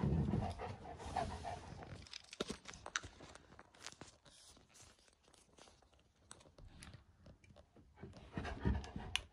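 Young black Labrador panting with its mouth open, loudest for the first couple of seconds, then quieter scattered clicks and rustles.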